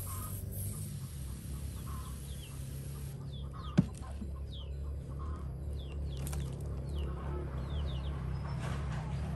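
Chickens clucking in the background, with many short, high, falling chirps from small birds from about three seconds in. A single sharp click near four seconds in is the loudest sound.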